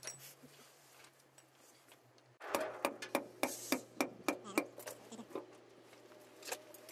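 A quick run of sharp metal taps and clicks, about five a second for two seconds, from a hand tool working at the seam of a truck differential cover. It is the cover being broken loose from its seal, just before the gear oil drains out.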